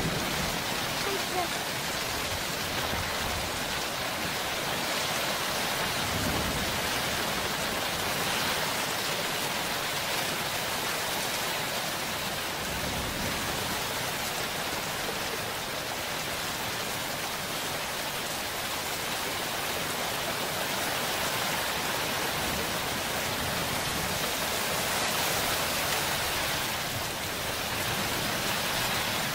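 Steady heavy rain hissing down during a thunderstorm, with faint low thunder rumbles about six seconds in and again around thirteen seconds.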